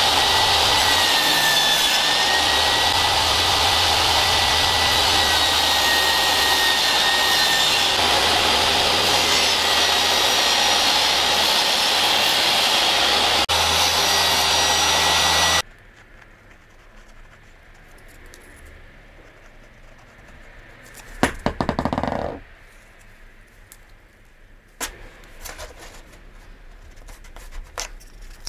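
Table saw running and cutting wood: a loud steady whine over the blade noise, which stops abruptly just past halfway. After it, quieter handling at the bench, with a short scraping rub about three-quarters through and a few light taps.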